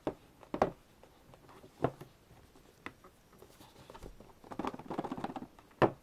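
Hard cardboard album box being handled while the album is worked out of its stubborn outer case: a few scattered taps and knocks, then a stretch of scraping and rubbing about halfway through, and one more knock near the end.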